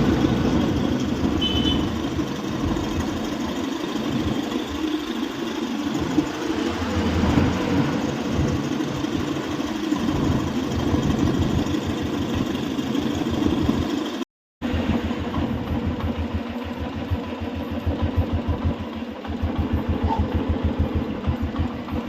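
Royal Enfield UC single-cylinder engine running steadily at idle, with a problem engine noise over its even low thumping.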